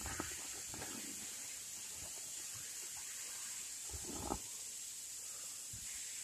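A hiker's hands and boots scuff and scrape on rock while scrambling along a sloping boulder with a backpack on. There are a few soft scrapes early, then a sharper knock about four seconds in, all over a steady high hiss.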